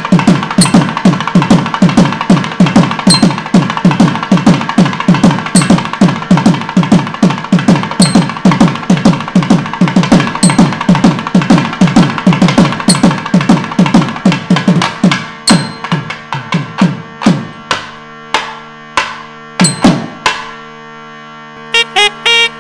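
Background music of fast, steady drumming, about four to five beats a second. After about fifteen seconds the drumming thins to a few spaced strokes over held notes.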